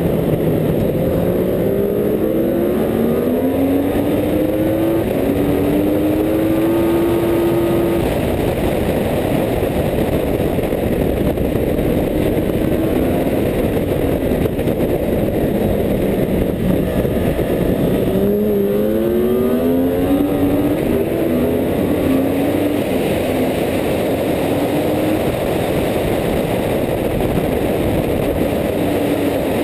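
Sport motorcycle engine heard on board at track speed under heavy wind rush. It pulls up through the gears in stepped rising glides in the first several seconds, falls away as it slows about halfway through, then accelerates through several upshifts again.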